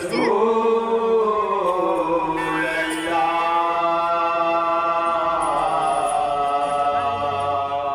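A man singing a naat unaccompanied into a microphone, drawing out one long note with slow, gentle turns in pitch.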